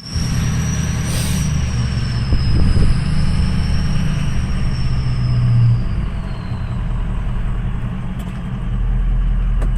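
Car driving, with a steady low rumble of engine and road noise. A thin high whine wavers above it and fades out about two-thirds of the way through.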